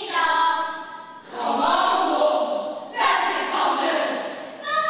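A group of children singing together in unison, in three long phrases with held notes.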